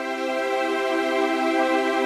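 Background music of steady, held chords.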